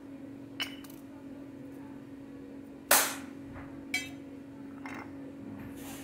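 Sharp clinks and clacks of steel spoons and small containers against a stainless steel plate as spices and flour are added to it, the loudest about three seconds in, with lighter ones about half a second, four and five seconds in. A steady hum runs underneath.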